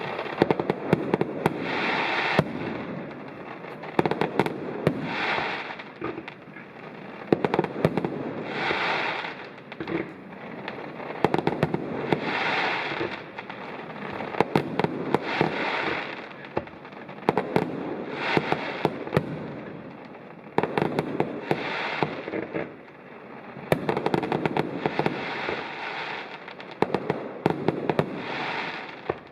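Fireworks display: aerial shells bursting with sharp bangs, each burst followed by a swell of rapid crackling, one after another about every three seconds.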